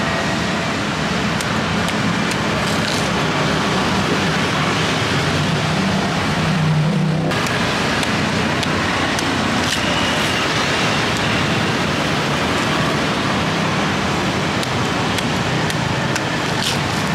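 Steady street traffic noise from passing motor vehicles, with a low engine hum that fades about seven seconds in and a few faint clicks.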